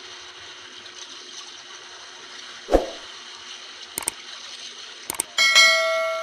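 Seawater washing over rocks as a steady hiss, with a dull thump about three seconds in. Near the end, a subscribe-button sound effect: two pairs of mouse clicks, then a bell chime that rings out and slowly fades.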